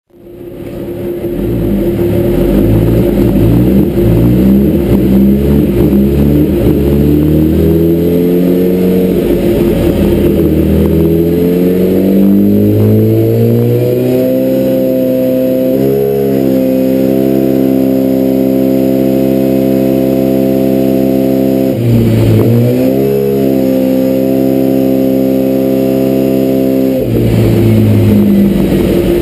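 2011 Kawasaki ZX-10R's inline-four engine running on a dyno, fading in at the start and revving up through the gears with a drop in pitch at each shift, then held at steady high revs. The revs dip briefly about two-thirds of the way through and again near the end.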